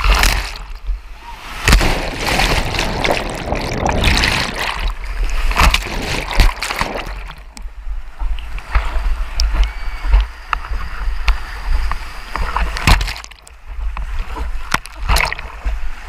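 Whitewater rapid rushing and splashing around a camera that dips in and out of the water, with many sharp splashes and a heavy rumble of water buffeting the microphone.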